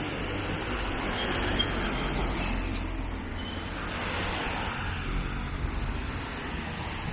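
City street background noise: a steady hiss and low rumble of road traffic, with no clear single event.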